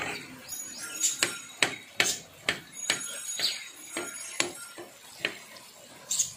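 Flat steel spatula striking and scraping a heavy black iron pan while mashing boiled potatoes into pav bhaji gravy: a string of irregular metal knocks, about two a second.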